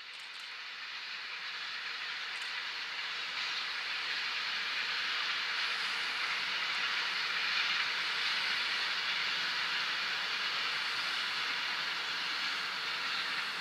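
Container freight train hauled by an electric locomotive passing on the main line: a steady rolling noise of wheels on rails. It grows louder over the first few seconds as the train approaches, then holds steady as the long string of container wagons runs by.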